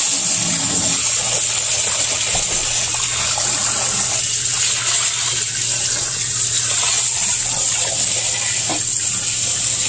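Water spraying from a garden hose onto the aluminium fins of a commercial freezer's evaporator coil, a steady hiss and splash, to melt the ice that has built up on the coil. A steady low hum runs underneath from about a second in.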